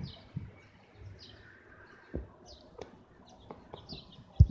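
Birds chirping in short high calls, repeated every second or so, with a few dull thumps, the loudest near the end.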